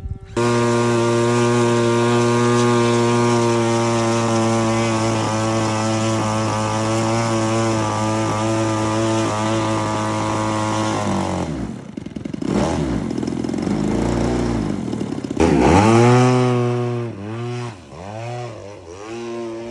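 Engine of a radio-controlled model airplane running steadily at high throttle, then throttled back about eleven seconds in. A few seconds later it comes back loud, and its pitch swings up and down repeatedly as the plane flies past low.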